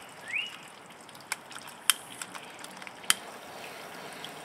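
A few sharp clicks in the middle, the loudest two about a second apart, as a long-reach butane lighter is clicked to light it. Short rising bird chirps repeat near the start.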